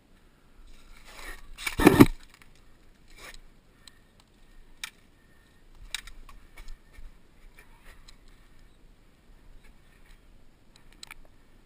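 Handling and movement noise: one loud rustling thump about two seconds in, then scattered sharp clicks and light scrapes.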